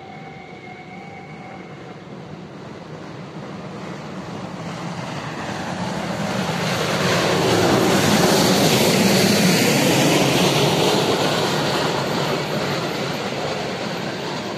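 Steam locomotive and its passenger coaches passing on the track: the rumble and rail noise grows as the train approaches, is loudest as the locomotive goes by about halfway through, with a hiss of steam, then eases off as the coaches roll past.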